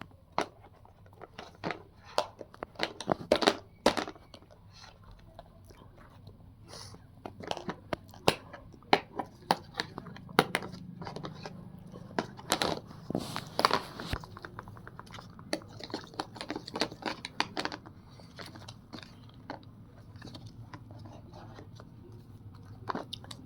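Irregular small clicks, taps and crinkling of small objects being handled, coming in loose clusters with short gaps between them.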